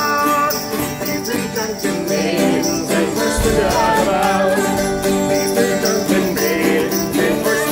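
Live acoustic folk band playing a tune: a plucked lute-like string instrument with other instruments and a frame drum.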